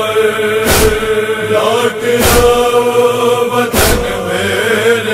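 Men's voices chanting a Shia mourning noha over a steady drone. Sharp unison beats land about every one and a half seconds, in the rhythm of matam chest-beating.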